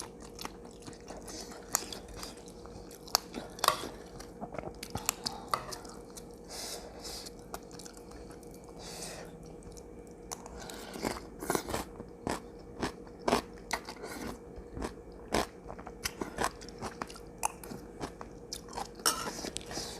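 A person chewing and crunching a mouthful of spicy seafood salad with squid and raw vegetables: irregular crisp crunches and wet chewing, with a run of louder crunches in the middle.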